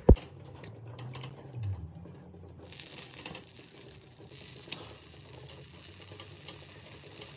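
A sharp click at the very start, then pork pieces sizzling faintly in oil in a glazed clay cazuela, with a few light ticks.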